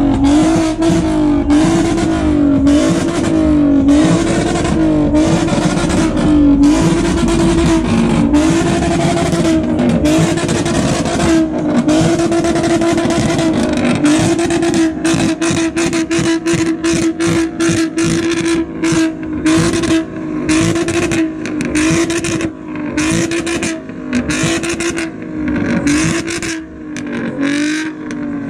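A tuned car engine revved hard and held high, its pitch dipping and climbing back about once a second. Through the second half, rapid sharp pops and crackles from the exhaust break in.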